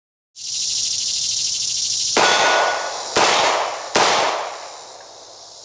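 Three shots from a Smith & Wesson Model 438 snub-nose .38 Special revolver with a 1 7/8-inch barrel, firing 158-grain soft-lead semiwadcutter loads. The shots come about a second apart and then a little quicker, each trailing off. The first is fired single action, the next two double action, over a steady high buzz of insects.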